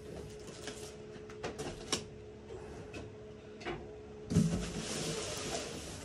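Cardboard packaging being handled on a wooden table: a few light knocks, then about four seconds in a thump and a scraping rustle of about two seconds as the large cardboard shipping box is shifted across the tabletop.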